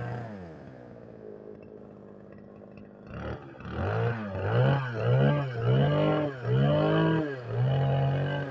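Small petrol engine of about 60 cc, test-running: the throttle is let off and the engine settles to a lower idle. About three seconds in it is revved again in a quick series of rising and falling blips.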